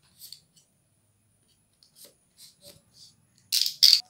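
A snap-off utility knife slitting the seal stickers on a cardboard phone box: a few faint, short scratchy strokes, then two louder scraping rasps near the end.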